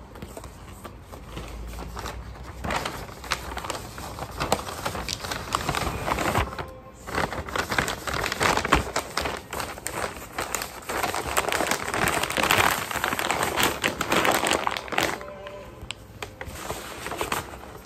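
Kraft paper packaging being handled and folded: paper crinkling and rustling in quick bursts, loud through the middle and dying down near the end.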